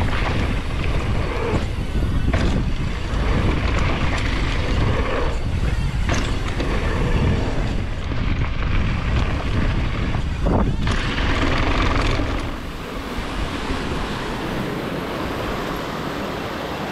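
Wind buffeting the microphone over a steady low rumble, with a few sharp knocks; the noise eases about three-quarters of the way through.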